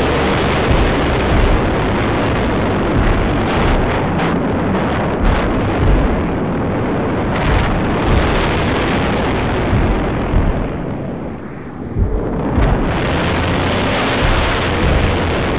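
Wind buffeting the microphone of a small camera flown on a kite: a loud, continuous rush with gusty swells, easing briefly about eleven seconds in.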